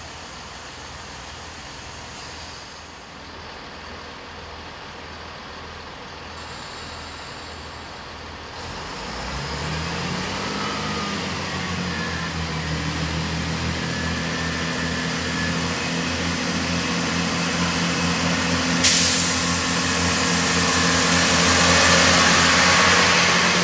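Class 165 Networker Turbo diesel multiple unit approaching and passing along the platform. It is faint at first; about nine seconds in the note of its underfloor diesel engines comes in, rises briefly in pitch and grows steadily louder. A sudden steady hiss joins about three-quarters of the way through.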